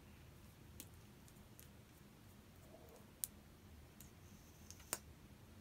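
Near silence broken by a handful of faint, scattered clicks of plastic being handled as a mascara tube is uncapped and the wand drawn out.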